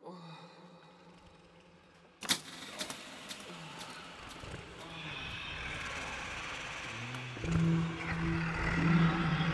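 Audio-drama sound effects for a man thrown into a lions' den: a sharp thud about two seconds in, then a rough rumbling that grows louder, with a low drawn-out tone coming in near the end.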